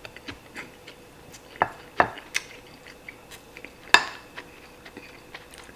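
Wooden spoon scraping and clicking against a white plate while scooping up fried rice, in scattered light taps. A few louder clicks come in the middle, and the sharpest is about four seconds in.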